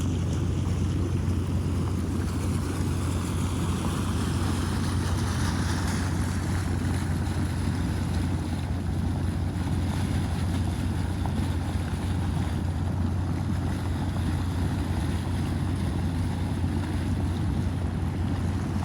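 Flash-flood water rushing steadily down a desert creek, a constant noise heaviest in the low end, with no breaks.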